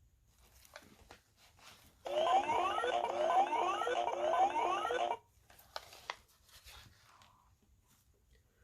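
Electronic sound effect from a children's sound book's speaker chip: a warbling electronic tone with three rising sweeps about a second apart, lasting about three seconds. It starts about two seconds in and cuts off abruptly. Faint clicks and rustles come before and after it.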